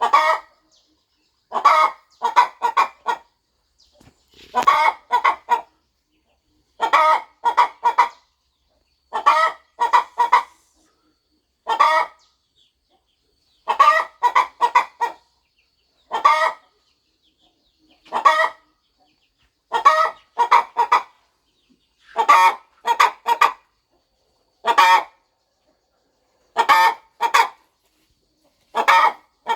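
A broody hen clucking: short clucks in quick groups of one to four, a group about every two seconds.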